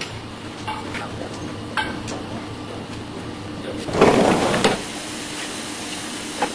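Core drill grinding machine running with a steady hum, with a few sharp clicks and a short, loud rasping burst about four seconds in.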